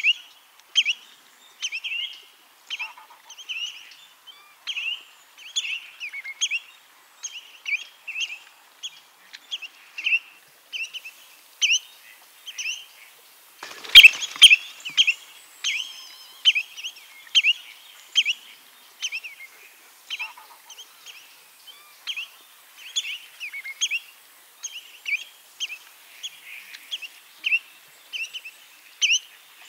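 Spotted redshank calling over and over: short, sharp whistled notes, about two a second. A single sharp click about halfway through.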